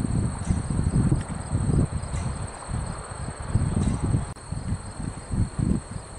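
Steady high-pitched drone of chirping insects, with an uneven low rumble of wind on the microphone beneath it and a single sharp click a little after the middle.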